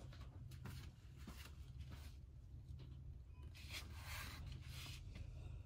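Quiet room tone with a steady low hum and a few faint rustles and shuffles, loudest about four seconds in.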